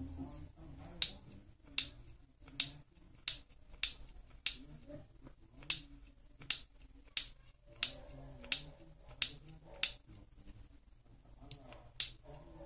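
Long-nosed trigger lighter clicked over and over, about fifteen sharp clicks roughly two-thirds of a second apart, with a short pause about ten seconds in.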